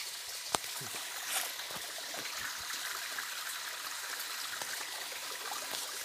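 Steady rush of flowing river water, with one sharp click about half a second in.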